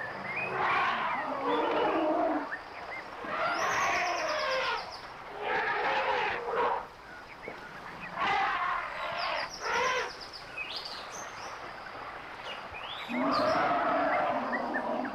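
Elephants calling: about five separate calls, each one to two seconds long, with birds chirping faintly in the background.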